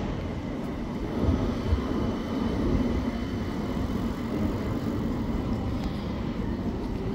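A West Midlands Metro CAF Urbos 3 tram running along street track, heard as a steady low rumble over city-street background noise.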